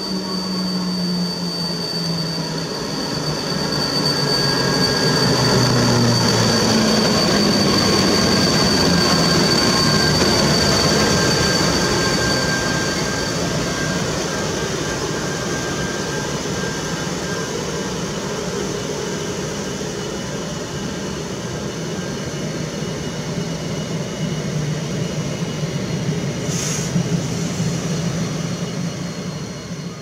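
PKP Intercity EP09 electric locomotive and its passenger coaches rolling past along the platform while braking for a station stop. A steady high squeal runs through the first half, and a low hum falls in pitch as the locomotive goes by. The noise is loudest about 4 to 12 seconds in, and there is a brief hiss near the end.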